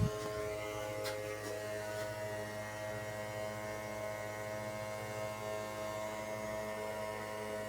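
Small DC motor salvaged from a radio, running a homemade mini fan's propeller with a steady hum of several even tones.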